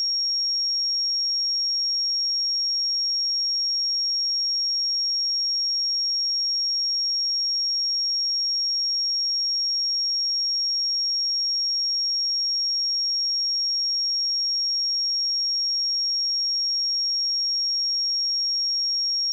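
A pure 5573 Hz sine-wave test tone, one steady high-pitched whistle-like pitch held at constant level without change.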